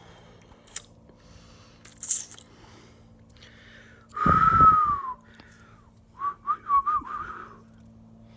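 A person blowing hard through pursed lips, a breathy whistle that falls in pitch about four seconds in, followed by a string of short wavering whistled notes; a brief hiss of breath comes about two seconds in.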